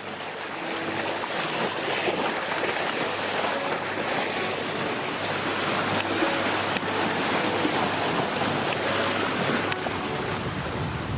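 Sea water rushing and splashing along the hull of a sailing yacht under way, with wind buffeting the microphone, a steady dense rush throughout.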